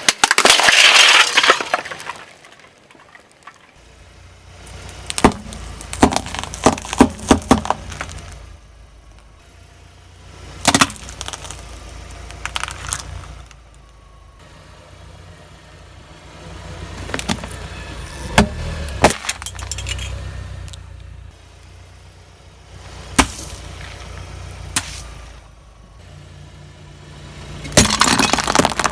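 Car tyres rolling over hard, brittle objects and crushing them, in several separate bursts of sharp cracks, snaps and crunches. The car's engine runs low and steady between the bursts.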